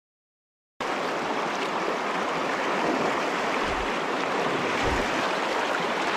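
Silence, then about a second in, the steady rush of a shallow, fast-flowing freestone stream riffle starts abruptly, with two soft low bumps near the middle.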